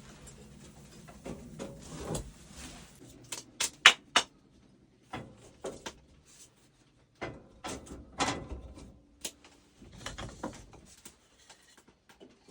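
Irregular knocks and clatters of things being handled, with a quick run of sharp clacks about four seconds in.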